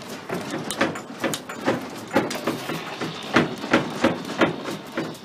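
Repeated sharp knocks and rattles, irregular, about two or three a second, over a low rumble.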